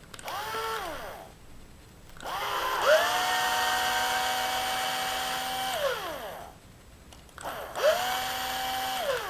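Drill motor running in three bursts on small screws, each one spinning up in pitch, holding, then winding down; the middle run is the longest at about four seconds.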